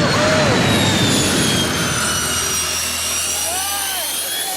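Jet engine of a jet-powered dragster running at full blast, a loud rushing roar with a high turbine whine that sinks and then climbs in pitch. Two short arching whistles come in, one just after the start and one near the end.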